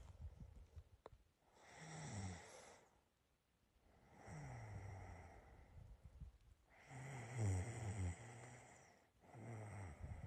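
A person snoring: four snores in a row, each a second or two long, with short gaps between.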